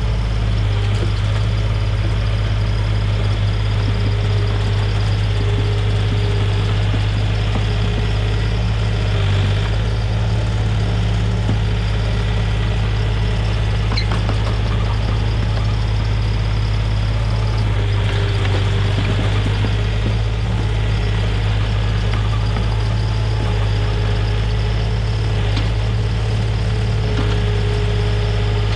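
Komatsu mini excavator's diesel engine running steadily, with a faint higher whine that comes and goes over the engine note and a single sharp click about halfway through.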